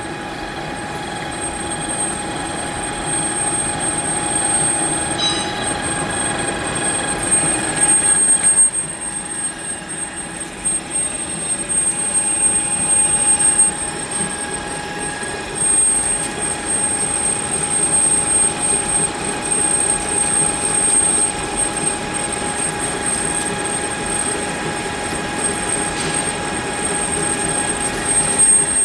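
Metal lathe running while boring out the inside of a workpiece. It gives a steady whine made of several held tones over a hiss of cutting noise.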